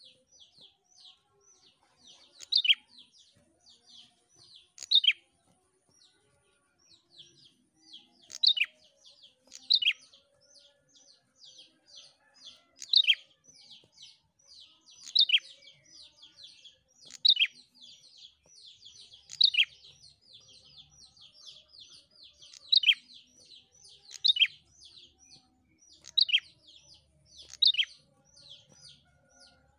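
A prenjak, a small caged songbird, calling steadily. A rapid run of high, thin chirps is broken about every two seconds by a louder, sharp note that slides downward.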